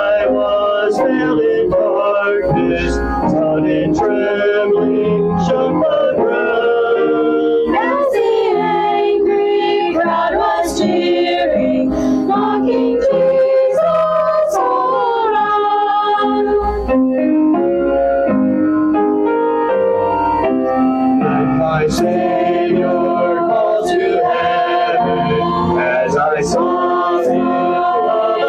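Small mixed choir of men's, women's and a girl's voices singing a choral arrangement together in parts, sustained notes moving smoothly from one to the next.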